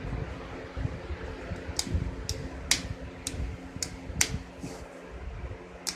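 About seven sharp clicks at irregular intervals over a steady mechanical hum.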